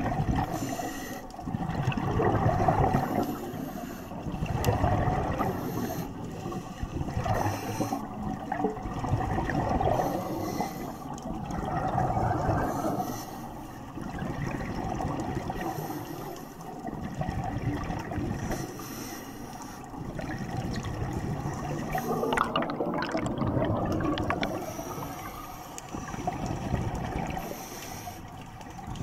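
Scuba divers' exhaled bubbles rushing and gurgling out of their regulators underwater, swelling and fading every two seconds or so, with short hisses in between.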